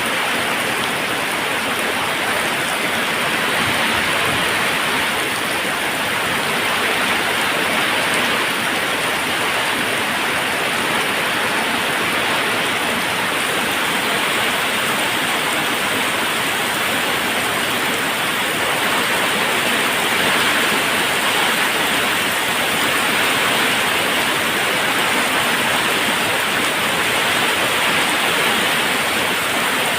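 Waterfall rushing steadily: a dense, even hiss of falling water with no breaks or changes.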